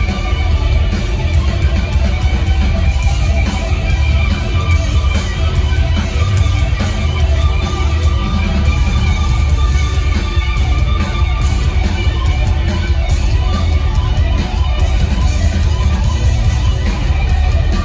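Live rock trio playing loud: electric guitar, bass guitar and drums, heard from the audience in the hall.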